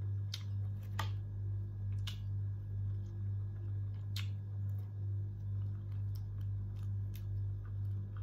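A person eating shrimp by hand: a scattering of sharp clicks and crunches from chewing and shells, the clearest about a second in and near the middle. They sit over a steady low hum that swells and fades about twice a second.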